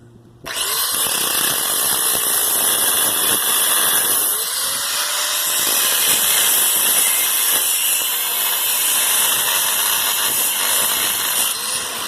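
A power tool cutting into an electric motor's windings. It starts suddenly about half a second in, runs steadily with a high, hissing edge, and eases off near the end.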